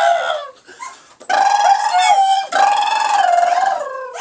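A dog giving long, wavering, high-pitched whining howls: one trailing off just after the start, then two longer ones of more than a second each, with a brief break between.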